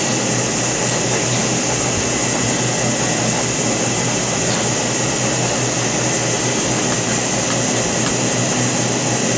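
Steady whirring background noise with an even hiss, with a few faint light clicks about a second in and again around the middle.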